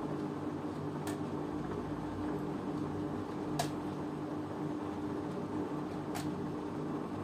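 LG washing machine running a 90 °C cotton programme: a steady hum, with a sharp click about every two and a half seconds, three times.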